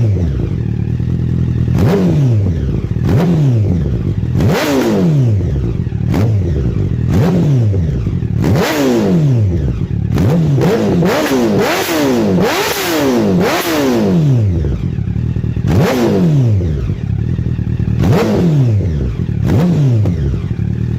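2009 Honda CBR1000RR's inline-four engine revved repeatedly through a full Akrapovič exhaust with header. Each rev climbs sharply and falls back to idle, over a dozen times, with a quick run of blips near the middle.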